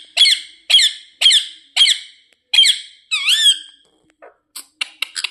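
Indian ringneck parakeet calling: a run of short, sharp, high screeches about two a second, then one longer wavering call, then a quick burst of clicking chatter near the end.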